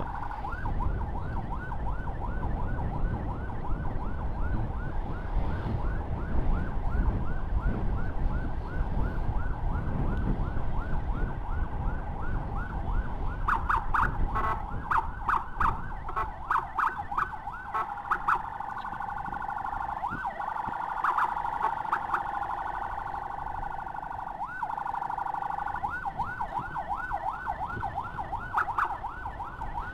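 Electronic emergency siren sounding a fast yelp, about three or four sweeps a second. About halfway it switches to rapid stuttering pulses and a briefly held tone, then goes back to the yelp near the end. Under it runs a low rumble of engine and wind, heavier in the first half.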